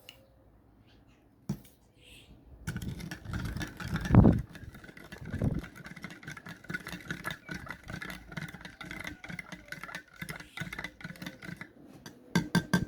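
Small electric pump of a portable espresso machine running with a rapid rattle for about nine seconds, starting about three seconds in and stopping near the end, with a couple of dull thumps early on its run and a few clicks after it stops.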